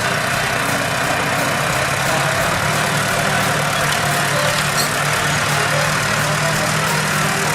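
Tractor engine running steadily, with a constant low hum under a broad noisy rumble.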